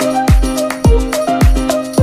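Upbeat background music with a deep kick drum on every beat, about two beats a second, under a bright melody.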